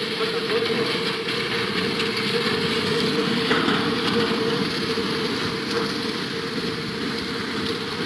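Muddy flash flood (debris flow) rushing past in a loud, steady churning noise, with a steady hum running through it.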